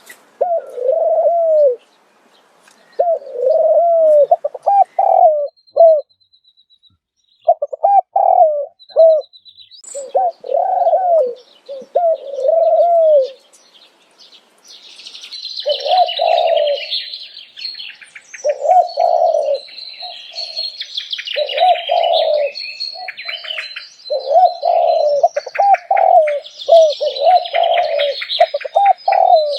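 A dove cooing: repeated short, arched, low coos in phrases with brief pauses. From about halfway, the high chirping of small birds runs alongside.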